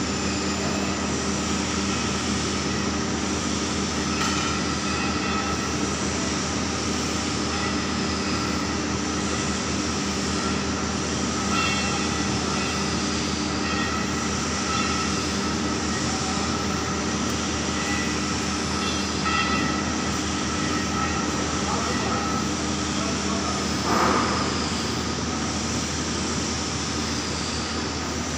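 Large engine lathe running steadily with a heavy die workpiece turning in its chuck: a continuous machine drone with several steady tones. A brief louder noise comes about 24 seconds in.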